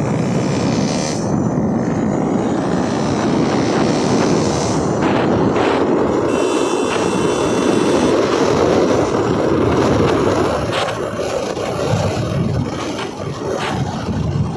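Motorcycle riding along at speed: wind rushing over the onboard microphone over the engine's drone, steady throughout.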